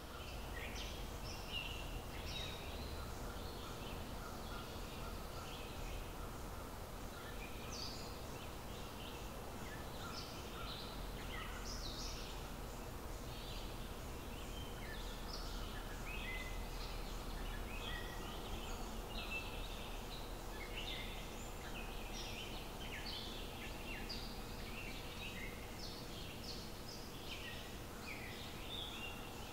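Outdoor ambience of many small birds chirping, a dense stream of short calls over a steady low rumble.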